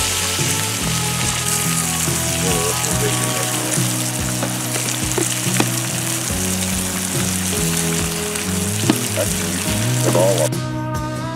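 Bacon sizzling in a frying pan over a campfire, with a few sharp pops, over background guitar music. The sizzling cuts off suddenly near the end, leaving the music.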